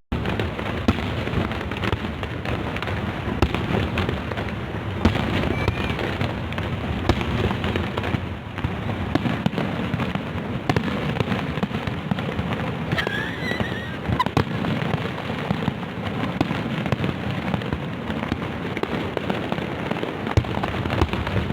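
Fireworks display going off: a dense, continuous run of bangs and crackles.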